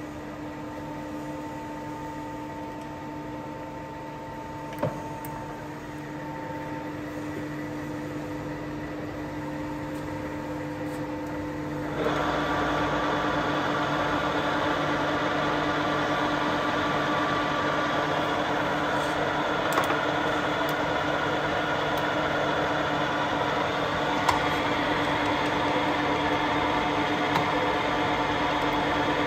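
Baoji CS6250B engine lathe running with a steady mechanical hum, and a sharp click about five seconds in. About twelve seconds in the sound turns abruptly louder and busier, the whir of the headstock gearing with the chuck spinning.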